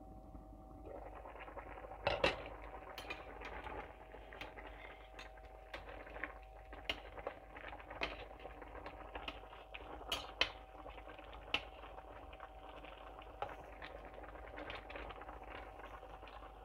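Korma sauce bubbling in an uncovered stainless pan, with a metal slotted spatula clicking against the pan as the chicken is stirred. A louder clank about two seconds in.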